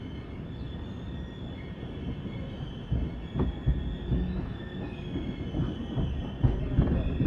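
Passenger express train running on the track: a steady rumble with a faint high whine, then from about three seconds in a series of irregular knocks and clunks from the running gear.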